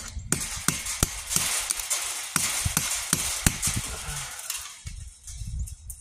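Hammer drill with a masonry bit boring into a concrete block wall, a dense grinding rattle. The drilling stops about three-quarters of the way through, leaving a few low knocks.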